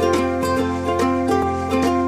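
Background music: a bright tune on plucked strings with a quick, even rhythm over a bass line.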